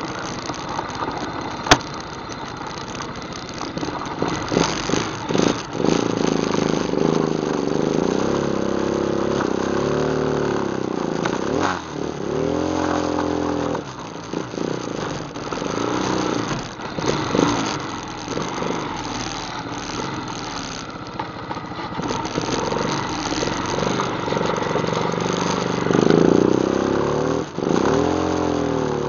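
ATV engine running as it is ridden along a trail, revving up and easing off again and again, with a sharp click about two seconds in.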